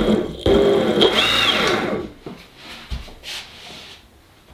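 Large 15 kW brushless motor spinning up on the bench under a speed controller. It starts suddenly and whirs loudly for about two seconds, with a whine that rises and falls, then winds down. This is the motor running after the insulation was scraped and melted off its copper wires.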